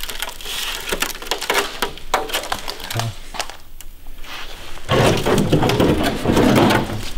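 Rotted, rusted sheet metal on a Mercedes C123 coupé's lower body crunching and crackling as it is pressed and broken away: the metal is rusted through and no longer holds. A quick run of small cracks comes first, then a louder, denser crunch about five seconds in.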